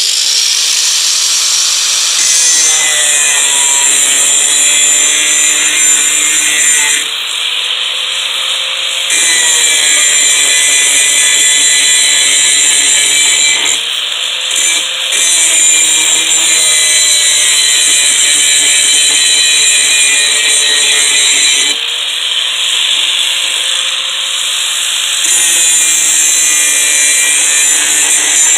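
Angle grinder fitted with a sanding disc, running and sanding rust off a metal tool: a loud, steady motor whine over the hiss of the abrasive on metal. Its pitch and tone shift several times.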